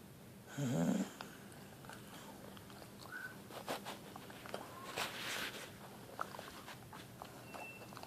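A pet snoring while awake: one loud, short, wavering snore about half a second in, followed by quieter breathy sniffs and small clicks.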